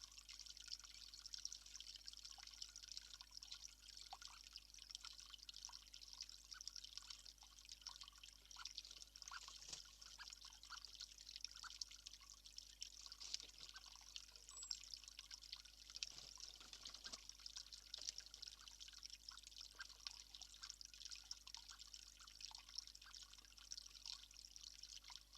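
Faint steady trickle of water with many small scattered drips.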